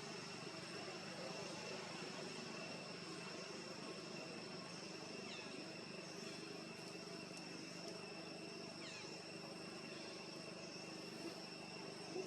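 Outdoor ambience: a steady high-pitched insect drone over a low background rumble, with a few faint short descending chirps.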